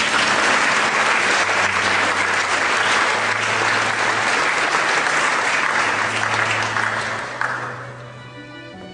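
Audience applauding, dense clapping that dies away near the end, with faint music underneath.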